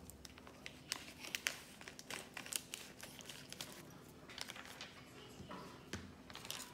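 Quiet, irregular handling noise: light clicks, taps and short crinkling rustles.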